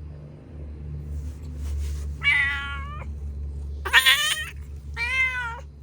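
Domestic cat meowing three times, each call under a second long, the middle one the loudest, over a steady low hum.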